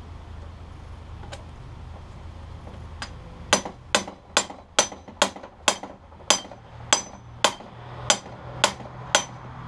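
A claw hammer striking a hand impact driver about a dozen times, roughly two blows a second, each a sharp metallic strike with a short ring. The blows shock a torqued-down bolt in a Honda CB750 engine case to start it loosening without stripping it.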